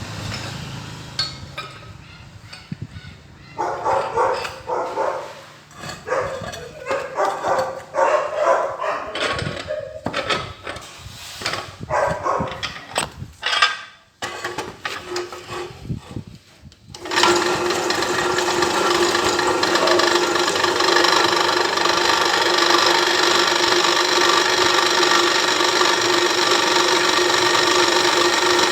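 Irregular short workshop knocks and scrapes, then about two-thirds of the way in an electric power tool starts and runs steadily with a constant whine.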